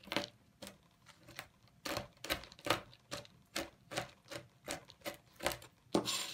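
Chef's knife chopping pistachio nuts on a plastic cutting board: a steady series of sharp taps, about two to three a second.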